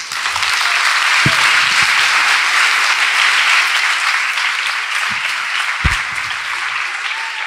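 Audience applauding, starting at once and easing off slightly toward the end, with a couple of dull low thumps in it.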